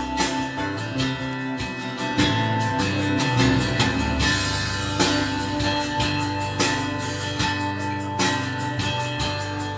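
Guitar music playing through a Leacs 500VT powered monitor amplifier on the test bench.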